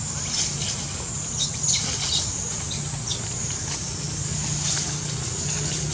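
Steady high-pitched insect drone in the forest, with a few short high chirps or squeaks scattered through, a cluster in the first couple of seconds and one more near the end, over a faint low steady hum.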